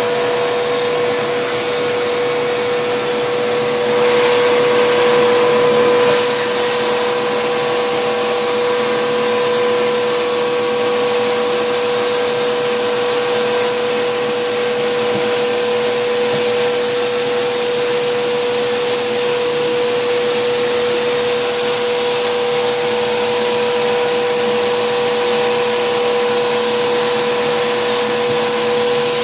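Vacuum cleaner running steadily, sucking dust from behind a refrigerator, with a steady motor whine. It gets louder for a couple of seconds about four seconds in, and then a higher hiss of air joins the sound and stays.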